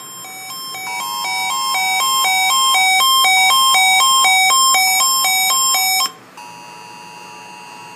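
An electronic chime melody, a short pattern of notes repeated quickly and growing louder, cuts off suddenly about six seconds in. A moment later a steady two-tone alert tone begins, the Emergency Alert System attention signal.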